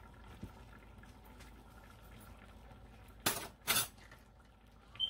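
Kitchen things being handled: two short, loud clattering knocks close together about three seconds in, then a brief light ringing clink near the end, over a faint steady hum.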